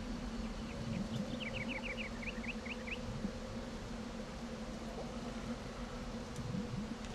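A flying insect buzzing, a steady hum whose pitch wavers and swoops as it moves about. About a second in, a quick run of about ten short high chirps.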